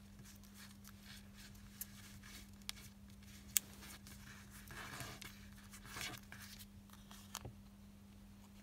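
Origami paper being folded and creased by hand: scattered soft rustles and sharp little ticks as the fingers press a fold flat, over a faint steady hum.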